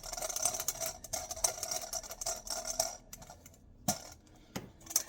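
Hands mixing a stiff sourdough starter dough in a bowl, working in a little added water: a busy run of fine crackling and squishing, easing off about three seconds in, then a single knock near four seconds.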